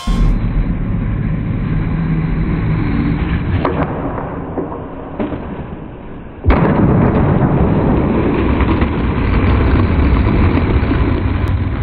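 Skateboard wheels rolling and rumbling on concrete. Just past halfway the board slams down on a landing with a sharp crack, and the wheels then roll on louder.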